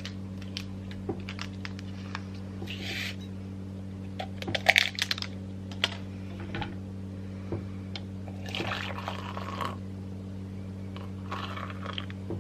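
Coffee being made: liquid poured into a cup in short runs, with light clicks and clinks of cups and spoon, over a steady low electrical hum.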